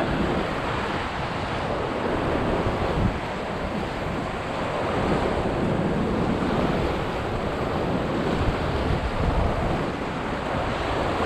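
Surf washing against the jetty rocks mixed with wind on the microphone, a steady rushing noise that swells and eases slowly.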